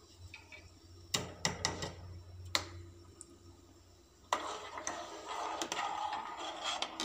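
A spoon knocking a few times against an aluminium saucepan, then, from about four seconds in, stirring and scraping through simmering milk in the pan.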